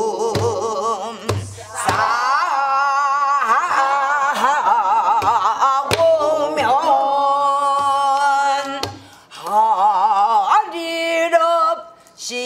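A woman singing pansori, holding long notes with a wide, heavy vibrato. She accompanies herself with a few sparse strokes on a buk barrel drum.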